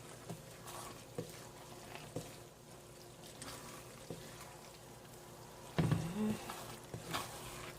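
Noodles being stirred and tossed into sauce in a pan: soft wet stirring with faint scrapes and light clicks of the utensil, louder for a moment about six seconds in.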